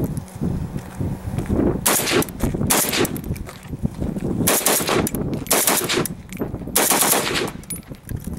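Gunfire: about six short strings of rapid shots, loud and sharp, coming in clusters between about two and seven seconds in, over a low rumble.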